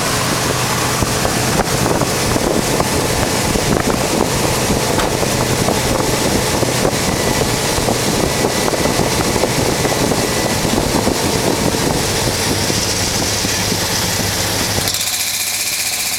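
Dodge truck running while driven, with a loud rushing noise and crackle laid over the engine, like wind on the microphone or tyres on the road. About fifteen seconds in the rushing drops away, leaving a steady low engine hum.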